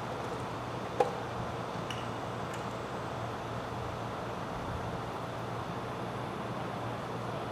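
Steady workshop hum and hiss, with one sharp clink about a second in.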